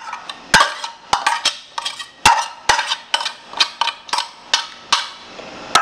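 A utensil scraping and tapping against a saucepan to knock grated cooked carrot out into a glass bowl: an irregular run of clinks and scrapes, several a second, with a few sharper knocks.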